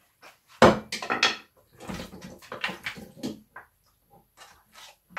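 Chunks of raw cow skin and cow feet tipped from a glass bowl into a cooking pot, landing with a sudden thud as a spatula scrapes and knocks them out of the bowl in a run of short clattering scrapes for about three seconds, then a few light taps.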